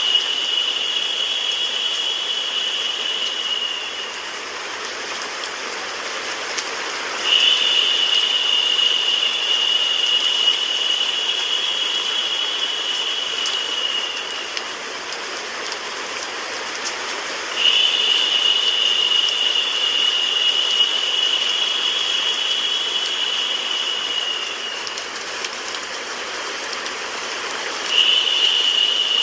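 Steady hiss of white noise mixed with recorded rain. Over it a high, steady tone comes in for about seven seconds at a time and drops out for about three, repeating.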